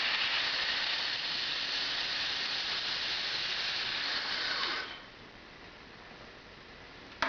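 Compressed air hissing out of the freshly drilled hot-tap hole past the drill bit as it is backed out, cutting off sharply about five seconds in as the bit clears the valve and the valve is closed. A single sharp click near the end.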